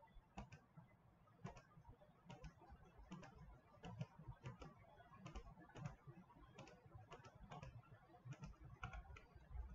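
Faint clicks of a computer mouse, coming irregularly about once a second and sometimes in quick pairs, as dropdown options are picked in software.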